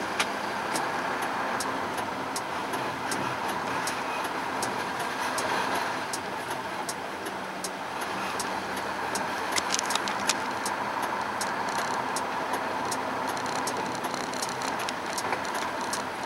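Diesel engine of a Hino Ranger 4-ton truck running at low speed with road noise, heard inside the cab, and a steady ticking one to two times a second all through. A few louder clicks come about ten seconds in.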